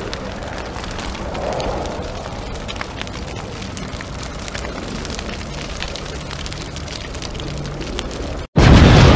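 A steady crackling hiss full of small, sharp pops. Near the end it cuts off abruptly and a much louder, deeper rumble takes over.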